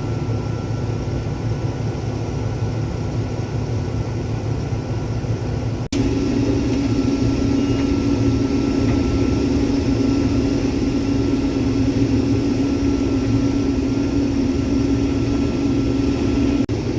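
Combine harvester running while cutting soybeans: a steady drone of engine and threshing machinery. About six seconds in it breaks off abruptly and a louder, steadier hum carries on.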